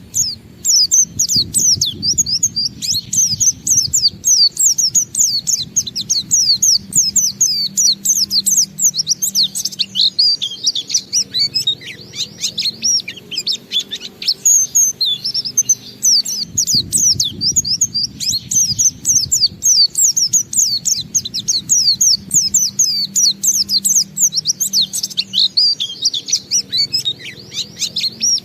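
Pleci (white-eye, Zosterops) singing a long unbroken 'ngalas' song: a rapid, dense stream of high, quick falling chirps with hardly a pause.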